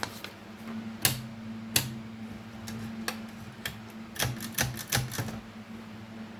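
Erika 32 manual typewriter being typed on: single sharp key strikes at an uneven pace, then a quicker run of strokes about four seconds in.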